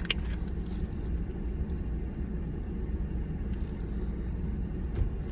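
Steady low rumble, with a short click just after the start.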